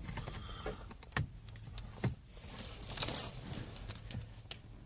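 Scattered light clicks and taps of a plastic steering column shroud being handled and pried at, where a hidden clip holds it in place.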